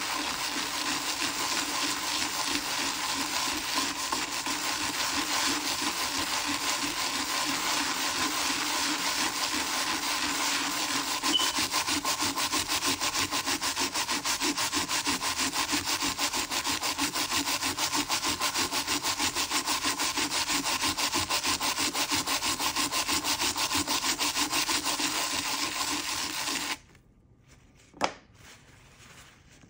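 A brush scrubbing a coin in foamy cleaning paste, fast and even. It stops suddenly near the end, and one short click follows.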